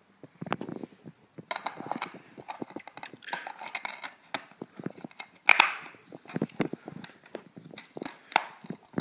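Plastic DVD case and disc being handled: a run of clicks, taps and rustles as the disc goes back into its case, with one sharp clack about halfway through.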